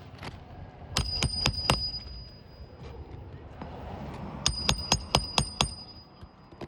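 Hammer driving roofing nails into a replaced asphalt shingle: two quick runs of strikes, about five and then about six, each with a high metallic ring.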